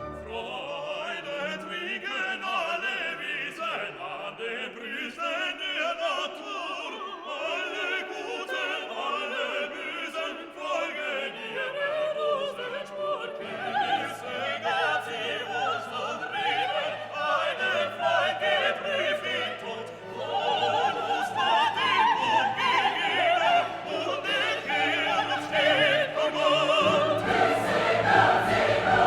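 Background music: a classical orchestral piece with choir-like singing, growing gradually louder, with a deep bass line coming in about halfway through.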